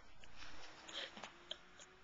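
Faint rustling with a few soft clicks and ticks, as of a camera being handled close up.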